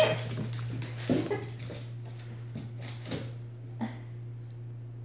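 Puppy and a larger dog at play on a tile floor: a knock at the start, then a few short, scattered dog noises, one with a brief rising squeak about a second in.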